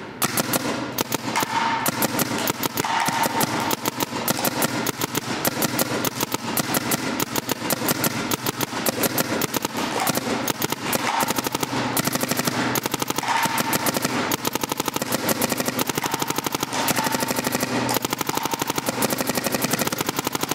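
Two electronic paintball markers, one a Planet Eclipse GSL, firing rapid strings of shots at the same time, a fast continuous crackle of air-powered shots that never lets up.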